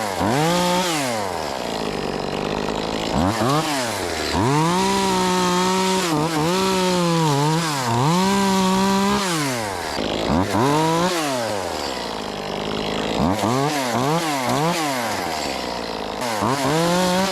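Top-handle chainsaw cutting wood, its pitch rising and falling as the trigger is squeezed and let off several times, held at full speed longest through the middle.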